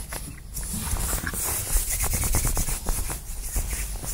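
Hands working dry, crumbly groundbait with sweetcorn in a bucket: a dense run of gritty rubbing and scraping strokes that picks up about half a second in.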